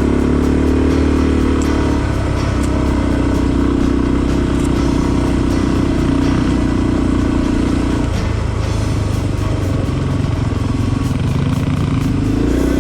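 Motorcycle engine running while riding. Its note drops about two seconds in and again around eight seconds, then climbs near the end.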